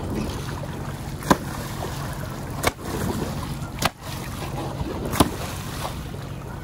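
A boat idles with a steady low hum while a snorkeler's fins splash and churn the water at the surface. Four sharp knocks stand out over it.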